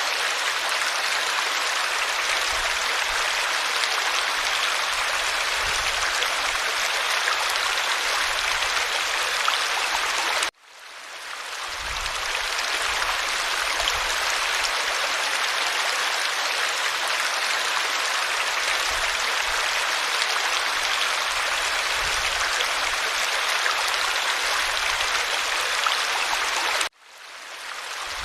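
Water of a small stream running over stones, a steady, even rushing and babbling. It cuts out suddenly twice, about ten seconds in and near the end, and fades back in over a second or so each time.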